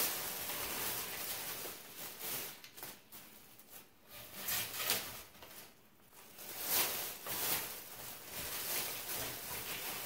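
Irregular rustling and crackling of wires and wrapping material being handled as an engine wiring harness is bundled and wrapped, with uneven swells and lulls.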